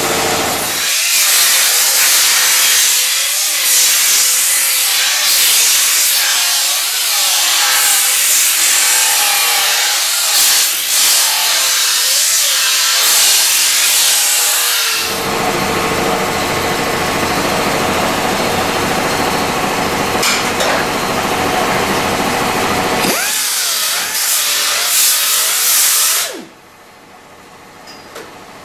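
Air-powered disc grinder with a coarse 24-grit pad grinding along the steel edge of a door skin to cut through the folded hem. Its pitch wavers as it bites and eases, and it stops abruptly near the end.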